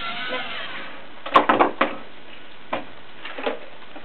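Plastic clicks and knocks as a LEGO Mindstorms NXT robot and its LEGO attachments are handled and set down on the competition table, with a cluster of knocks about a second and a half in and a few lighter ticks later. A faint whine dies away at the very start.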